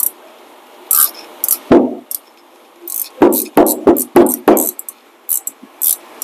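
Metal hand tools clicking and clinking against a rear brake caliper's bolts as they are worked with a wrench. There are scattered sharp clicks, then a quick run of about five knocks in the middle.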